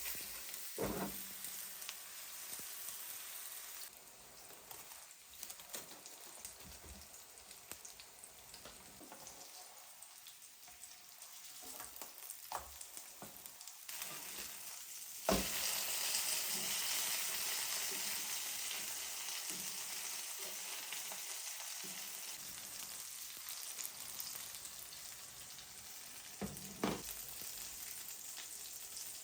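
Food frying in a hot pan, a steady sizzle with occasional utensil knocks. About halfway through there is a sharp clack and the sizzle jumps much louder, then slowly dies down.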